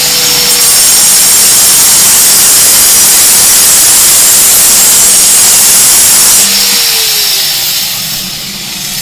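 Power saw with a diamond blade grinding through a concrete driveway, loud and harsh. About six and a half seconds in it is switched off and the motor winds down with a falling whine.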